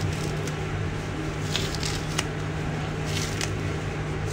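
Packing tape and plastic wrap on a parcel being picked at and torn open by hand: a few short rips and crinkles over a steady low hum.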